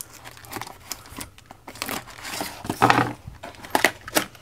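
A cardboard box being opened by hand, with a knife slitting the packing tape, then its contents pulled out of their plastic and foam wrapping with crinkling, rustling and tearing. The scrapes and rustles come in irregular bursts, loudest about three seconds in.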